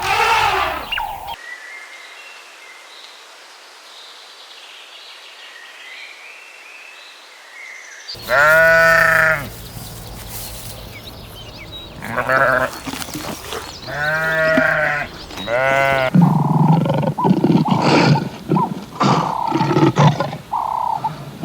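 Bleating livestock. After a quiet stretch, one loud drawn-out bleat comes about eight seconds in. Three more bleats follow a few seconds later, then a busier run of overlapping bleats and calls near the end.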